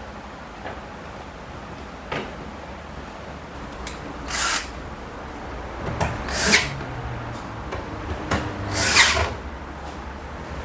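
Power drill or driver fastening screws during reassembly, in three short runs about four and a half, six and a half and nine seconds in, with a few clicks of handling between them.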